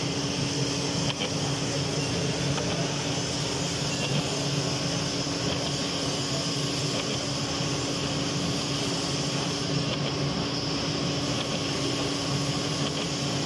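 Milling machine running steadily while its disc form cutter cuts the thread of a worm shaft under flowing coolant: a steady machine hum with a constant hiss above it.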